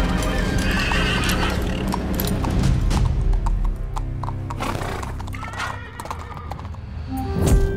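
A horse neighing and hooves clip-clopping over background music. A loud sweeping swish comes near the end.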